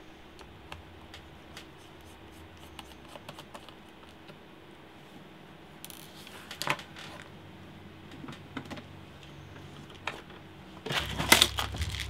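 Small Phillips screwdriver turning out screws from a laptop's plastic bottom case, with light clicks and scrapes of the screws. Near the end a clear plastic parts box rattles loudly as it is picked up and handled.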